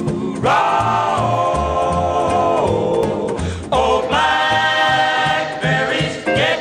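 Intro of a 1952 78 rpm record: a male vocal quartet singing long held close-harmony chords with an orchestra. Each chord scoops up into place, one about half a second in and another near four seconds in, over steady bass notes, with shorter clipped chords near the end.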